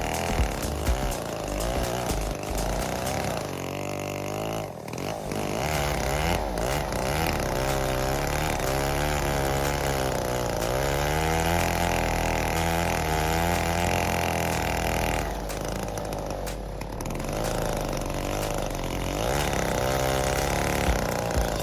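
Neotec 8105 105cc two-stroke chainsaw running continuously, its engine pitch rising and falling as the load changes, with a brief drop about five seconds in and a softer stretch past the middle.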